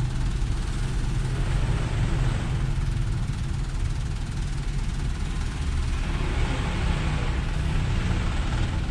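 Diesel truck engines running in slow, crawling traffic, a steady low rumble. About six seconds in, the noise grows fuller as a light truck rolls past close by.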